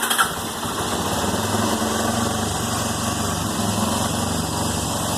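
Yamaha TT-R250's four-stroke single-cylinder engine catching right at the start and settling into a steady idle just after a carburettor rebuild, an idle the owner thinks may be a little high.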